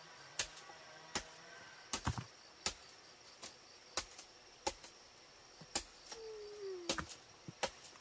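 Over a dozen sharp knocks, irregular and spaced a fraction of a second to a second apart.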